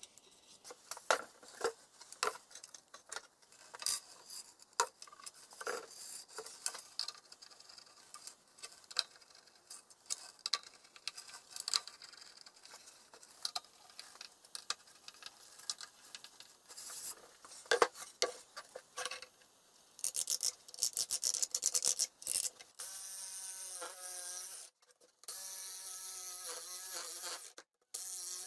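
Small clicks, taps and scrapes of wood screws being set and turned in by hand with a screwdriver into a particleboard panel, then a quick run of ticks. Near the end, a cordless jigsaw runs and cuts wood, a steady motor whine with a few short breaks.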